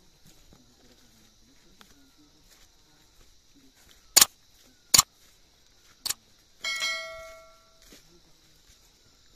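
Three sharp cracks about a second apart, then a pitched ringing clang that dies away over about a second, over a faint steady high hiss.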